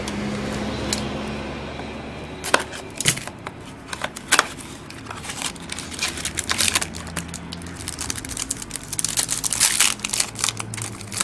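Trading-card pack wrapper crinkling and cards being handled: a run of small crackles and clicks, scattered at first and thick near the end.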